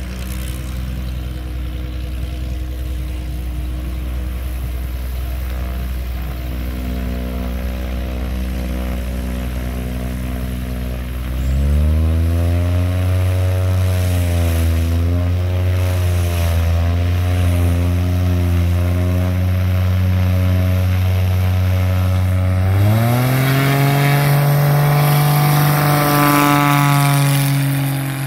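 Aerobatic biplane's piston engine and propeller running at low power, stepping up in pitch about twelve seconds in, where the pitch wavers. About 23 seconds in it opens up with a sharp rise in pitch to full power for the takeoff roll.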